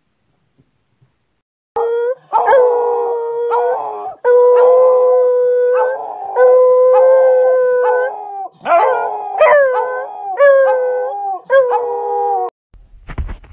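Beagles howling: a string of long, steady howls, several ending in a downward slide, stopping abruptly about a second before the end.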